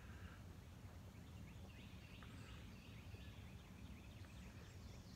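Near silence: faint outdoor ambience with a low steady background noise and faint, repeated short bird chirps.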